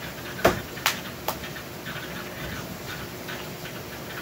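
Three sharp knocks within the first second and a half, the first the loudest, as feet strike wooden deck boards, followed by a steady faint background with light chirping.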